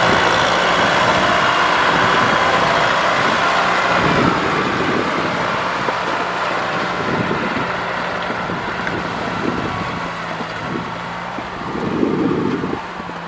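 Tractor engine running steadily while it works in mud, slowly growing fainter, with a brief louder burst near the end.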